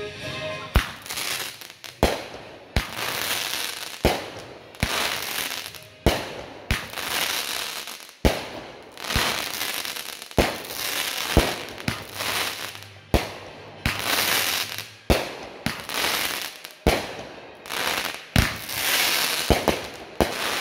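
Aerial fireworks firing shot after shot, about one a second. Each is a sharp bang followed by crackling and hissing as the stars burst.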